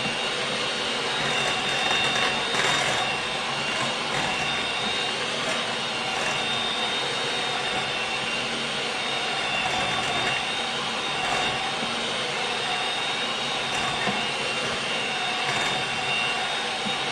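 Electric mixer running steadily with a high motor whine, its beaters shredding cooked chicken tenders in a crockpot; very, very loud.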